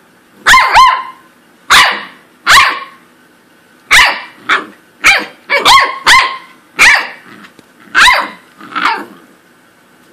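Pembroke Welsh Corgi puppy play-barking: about a dozen sharp, high-pitched barks, some in quick pairs, spaced irregularly with short pauses between.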